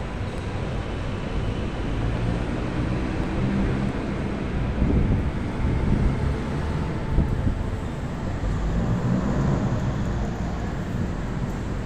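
Steady low rumbling background noise with no single clear source.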